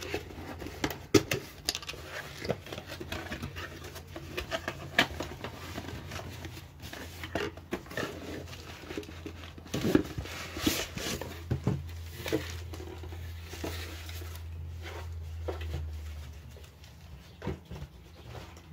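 A cardboard shipping box and its packing being opened and handled by hand: scattered taps, knocks and scrapes. A low hum runs for several seconds in the middle.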